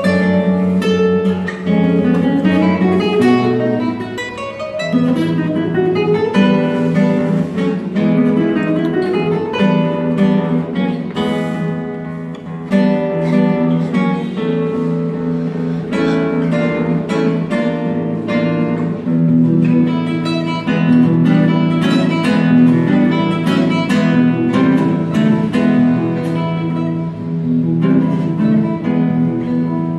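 Two nylon-string classical guitars playing a duet: many quick plucked notes over repeated bass notes.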